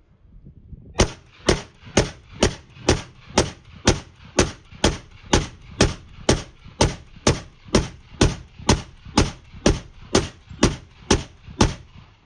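Semi-automatic rifle fired in a steady string of about two dozen shots, roughly two a second, starting about a second in.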